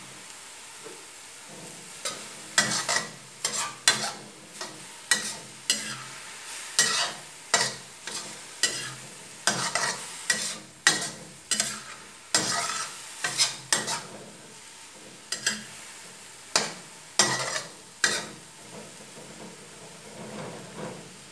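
Metal spatula scraping and turning shredded cabbage in a steel wok, in repeated strokes about once or twice a second over a low sizzle of frying. The strokes pause briefly in the middle and die away near the end.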